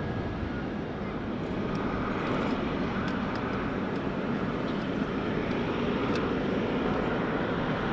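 Boeing 777-300ER's GE90-115B turbofan engines running at low taxi power: a steady jet rumble.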